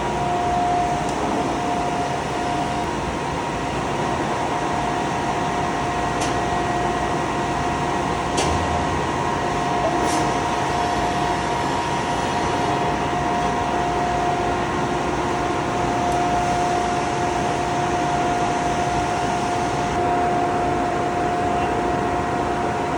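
CNC glass-cutting machine running steadily: an even whirring hum with a constant whine, and a few faint clicks around the middle.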